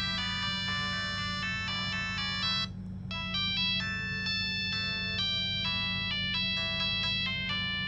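Samsung SGH-T108 mobile phone playing a synthesized polyphonic ringtone melody of short electronic notes. The tune breaks off briefly about three seconds in, then resumes, over a steady low hum.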